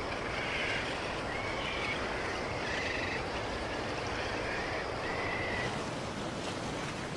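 Birds calling with repeated short, high, even-pitched calls about once a second over a steady wash of wind and sea; the calls stop about six seconds in.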